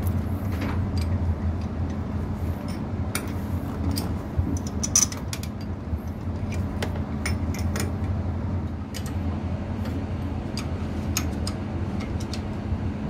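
Small metallic clicks and clinks of tools and metal parts as the cooling water pump is fitted back onto a lifeboat engine, over a steady low machinery hum.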